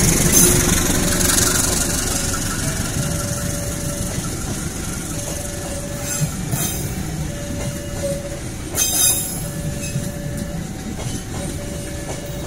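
Passenger coaches of the Kamandaka train rolling past close by: a steady rumble of steel wheels on rail with a few sharp clacks over the rail joints and a faint on-and-off wheel squeal, slowly getting quieter.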